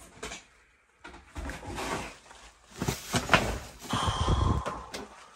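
Footsteps and rustling through piled trash and debris, with irregular knocks and clicks and a brief creak about four seconds in.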